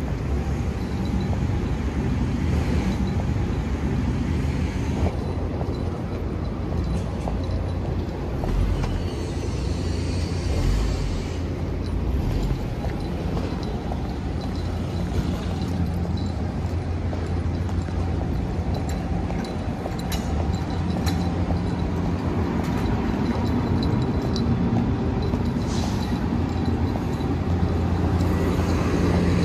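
Steady low rumble of city street traffic, with a few scattered knocks and a brief hiss partway through.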